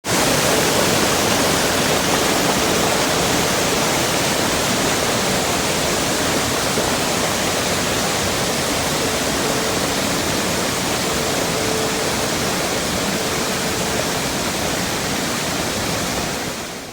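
Gretschwasserfall waterfall: a steady, loud rush of falling water that fades out near the end.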